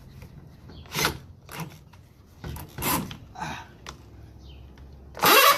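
Scattered clicks and knocks of a cordless drill being handled and set against a metal door hinge. Near the end the drill starts up suddenly and loudly with a rising whine, turning in reverse to back out a stripped screw.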